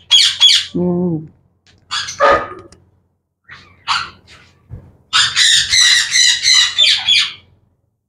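Caged lovebirds squawking in shrill, harsh bursts, ending in a long run of dense screeching from about five seconds in. A short, lower-pitched call comes about a second in.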